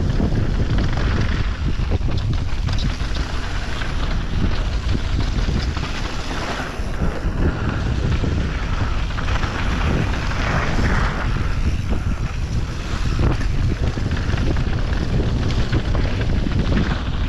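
Wind rushing over the camera microphone of a downhill mountain bike at speed, with tyres crunching over dirt and gravel and the bike rattling and knocking over the bumps.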